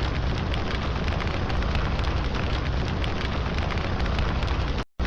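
Loud, steady crackling noise full of sharp clicks that cuts off abruptly near the end.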